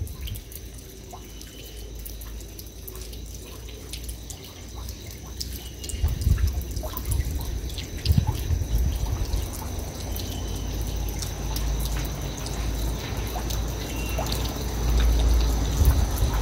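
Rainwater dripping, with many quick irregular drips, over a low gusty rumble of wind on the microphone that swells about six seconds in and again near the end.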